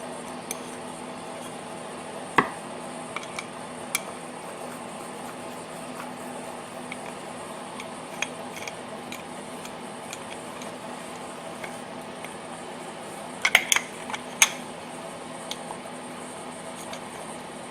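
Occasional sharp metal clicks and clinks of a hand tool and small screws as the breather-plate screws are turned into the valve cover of a small generator engine, with a cluster of clinks near the end, over a steady background hum.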